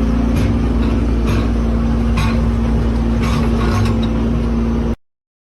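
An engine or motor running steadily, with a constant low rumble, a steady hum and a few faint knocks. It cuts off abruptly about five seconds in, leaving silence.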